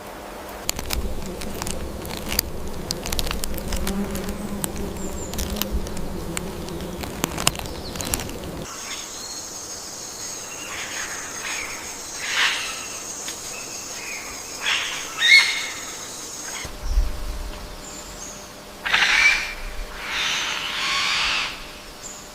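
Wild animal sounds: a steady high insect drone with short animal calls over it. Before this, for the first several seconds, there is a low rumble with scattered clicks, and a few louder calls come near the end.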